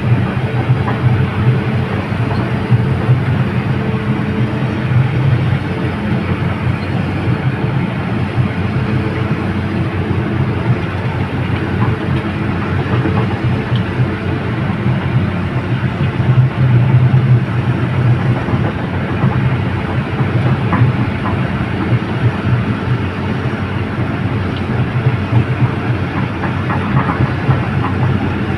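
Heavy excavator running steadily: a diesel engine drone under a continuous mechanical rattle.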